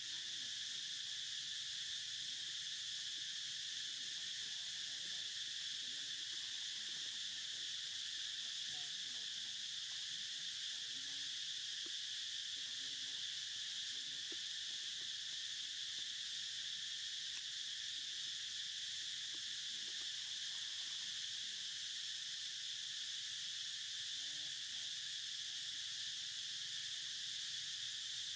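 Chorus of insects making a steady, high-pitched drone that does not break.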